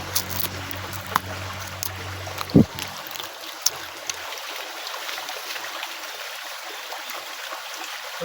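Steady hiss of running stream water, with scattered sharp clicks and one loud low thump about two and a half seconds in; a low hum underneath stops about three seconds in.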